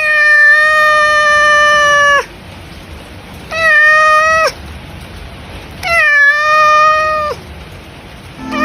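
Domestic cat meowing three times in long, drawn-out calls, each holding a steady pitch and dropping at the end: a hungry cat asking for food.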